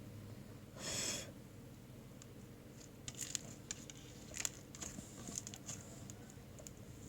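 Hands handling something crinkly: a short tearing rustle about a second in, then scattered small clicks and crinkles.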